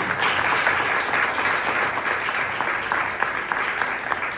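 Audience applauding: many hands clapping in a dense patter that slowly eases off toward the end.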